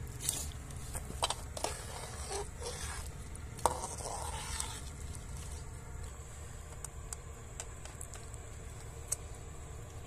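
Scattered light clicks and scrapes of a metal spatula and fingers in a metal cooking pot as pieces of cooked meat are picked out, busiest in the first half and thinning to a few single clicks, over a low steady rumble.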